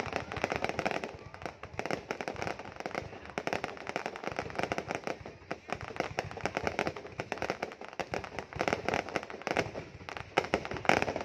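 Fireworks display going off continuously: a dense, irregular string of crackling bangs and pops, many each second, with no pause.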